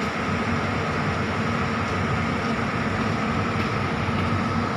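Tour coach's engine idling: a steady, unchanging hum with a constant high whine over it.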